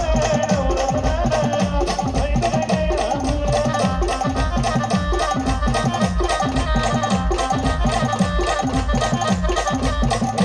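Indian brass band playing a fast folk-style tune: a held, wavering brass melody over a steady, driving drum beat.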